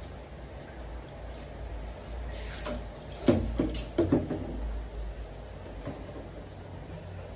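Water running from a tap or hand shower in a small tiled bathroom, with a few sharp knocks and clatters about three to four seconds in.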